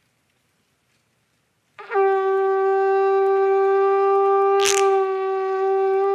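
A horn blown in one long, steady note that starts about two seconds in, with a sharp click partway through and the pitch sagging briefly near the end.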